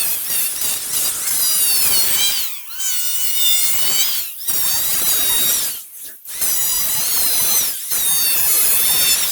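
Electric power tool working wood: a high motor whine over a rasping hiss, its pitch sagging and recovering under load, with brief drops four times.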